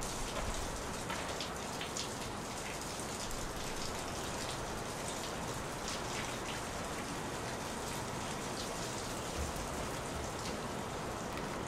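Water running from a bathtub tap into a clawfoot tub: a steady splashing hiss with many small droplet ticks.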